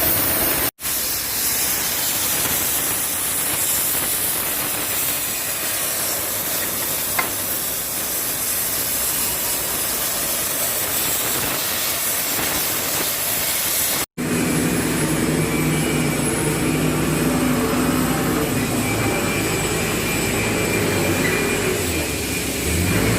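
Oxy-fuel gas cutting torch on a semi-automatic cutting machine, hissing steadily as it cuts steel plate. The sound breaks off for an instant twice. After the second break, about halfway through, a low steady hum runs under the hiss.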